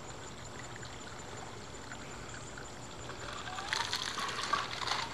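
Ice water poured from a bucket over a man's head, splashing and streaming off him, starting about three and a half seconds in.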